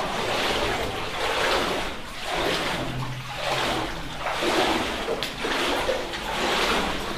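Water swishing and sloshing around a person's legs as they wade through deep water, surging with each stride about once a second.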